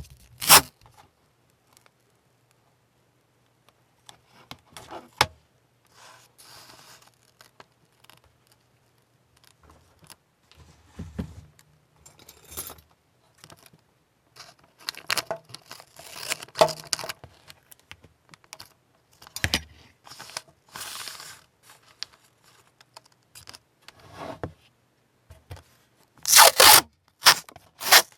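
Workbench handling sounds: scattered scrapes and clicks with short rasping, tearing bursts, ending in a quick run of about four sharp bursts.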